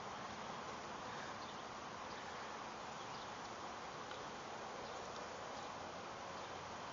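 Steady faint outdoor background noise: an even hiss with no distinct events.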